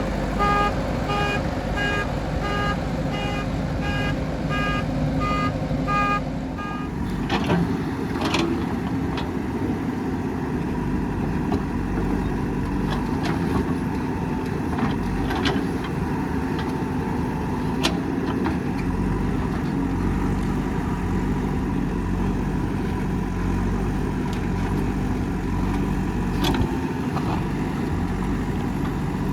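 Diesel engine of a backhoe or excavator running steadily under work. A pitched beeping alarm repeats about twice a second for the first seven seconds, then stops. A few sharp metallic knocks come through later, typical of the bucket and linkage at work.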